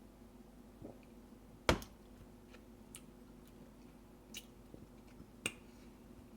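Shot glass and lime handled while a tequila shot is taken: a handful of small clicks and knocks, the sharpest about two seconds in, with a faint steady hum underneath.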